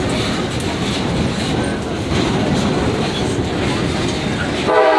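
Passenger train rolling along its track, a steady rumble with wheel clatter, heard from aboard; near the end the train's horn starts sounding, a loud chord of steady tones.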